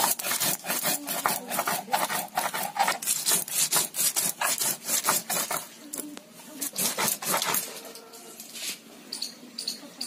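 Mustard seeds and cumin being ground on a flat stone slab with a stone roller (Bengali shil-nora): quick, even back-and-forth strokes of stone rubbing and scraping on stone over the gritty seeds. The strokes die away about eight and a half seconds in.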